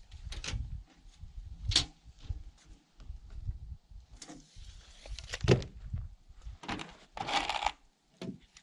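Irregular knocks, clicks and scraping rustles of hands-on work: a sharp knock about two seconds in, a heavier thump in the second half, and a longer scrape shortly after.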